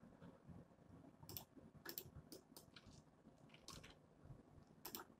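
Faint, scattered clicks of computer keyboard keys being pressed, among them a Ctrl+A shortcut, about eight clicks in all.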